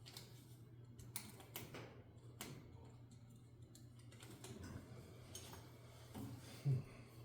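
Scattered light clicks and taps of tools and parts being handled while the backhoe control valve is taken apart, over a steady low hum, with a short dull thump near the end.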